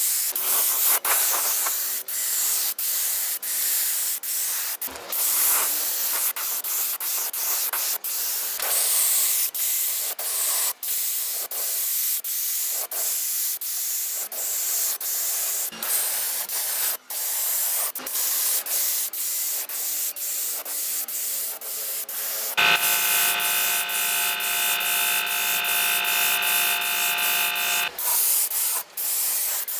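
Continuous harsh abrasive rubbing, a hissing scrape, broken by many abrupt breaks. About three quarters of the way through, a steady machine whine with several pitches joins it for about five seconds, then cuts off.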